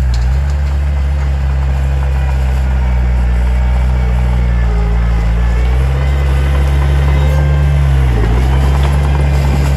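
Heavy diesel engine of earthmoving equipment running steadily, with a brief dip in engine speed about eight seconds in.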